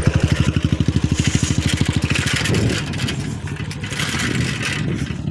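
A vehicle engine running close by with a fast, even putter for the first couple of seconds, then a rougher, noisier run.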